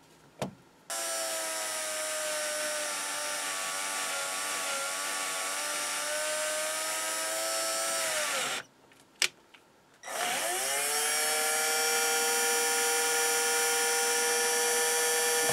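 An electric motor in a hobby metalworking workshop starts and runs steadily, then winds down with falling pitch to a stop about eight seconds in. About ten seconds in it starts again, runs up to speed and runs steady.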